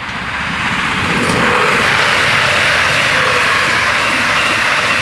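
Westfalenbahn Stadler FLIRT electric multiple unit passing over the level crossing at speed. A loud, even rush of wheels on rail and air swells over the first second or so and then holds steady.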